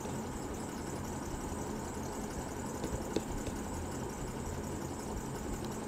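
Steady low background hum with a few faint clicks about three seconds in.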